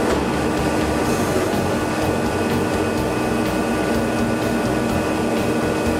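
MACR Italia CNC tube-bending machine running while it bends a steel exhaust tube: a steady mechanical hum with several held whining tones over an uneven low rumble.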